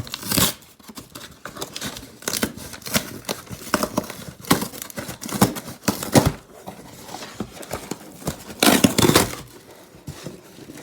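Brown paper wrapping being torn open and crumpled by hand, in a series of short rips and crinkles; a longer, louder rip comes near the end.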